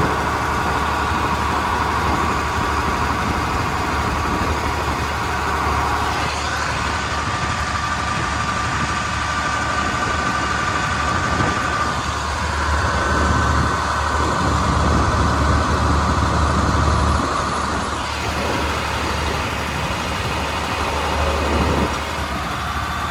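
John Deere 4230 tractor's six-cylinder diesel engine running steadily with a low drone, swelling a little louder about two-thirds of the way through before easing back.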